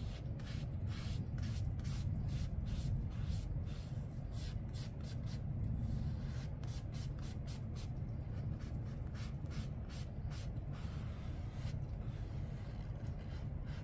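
Paintbrush loaded with watercolor stroking across paper, a long run of quick short strokes that stops about three seconds before the end, over a steady low hum.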